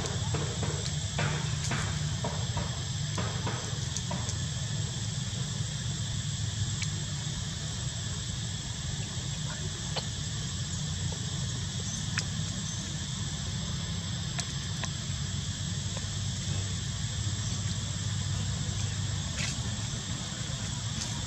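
Steady outdoor background of insects droning in high, even tones over a constant low rumble, with scattered small clicks.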